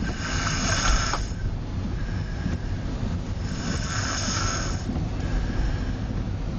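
Snoring: two noisy, breathy snores about three and a half seconds apart, each lasting a second or so, over a steady low rumble.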